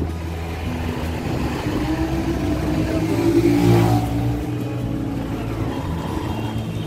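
Motorcycle engine running while riding along a road, with traffic noise around it; the sound swells and is loudest about three to four seconds in, then settles back.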